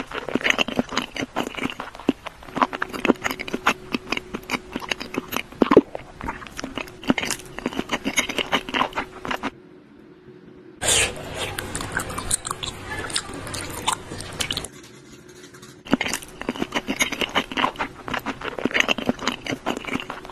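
Close-miked chewing and biting of snacks, starting with a vegetable-stuffed sausage, heard as dense runs of small wet clicks. A short pause about ten seconds in is followed by a rougher, hissier stretch, then more chewing near the end.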